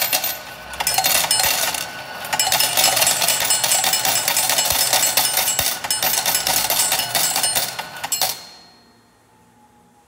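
Coin dispenser of a laundromat payment terminal paying out coins: a rapid clatter of coins dropping into its metal tray, stopping about eight seconds in.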